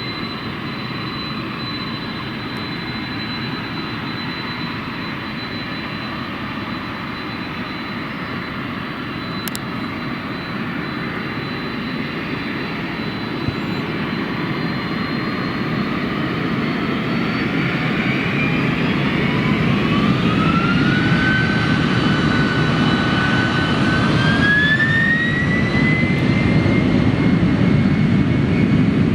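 Jet airliner engines running and growing steadily louder, with a high whine that rises in pitch in two steps in the second half.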